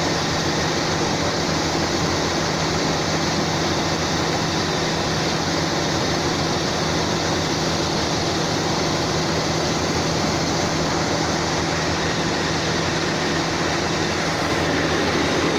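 Rice combine harvester running steadily, an even engine hum with a rush of machine noise over it.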